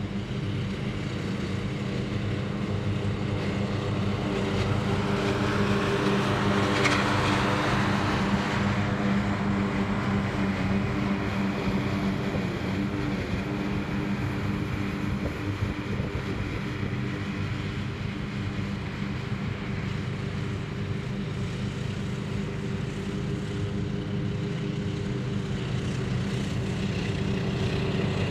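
Riding lawn mower engines running steadily while mowing grass, with a rush of noise that swells and fades about seven seconds in. The sound grows a little louder near the end as a mower comes closer.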